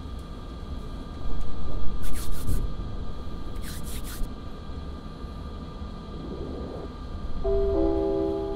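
Metro train and station sound: a steady low rumble with two loud hissing bursts, one about a second in and a shorter one about four seconds in, then a chime of a few steady notes near the end.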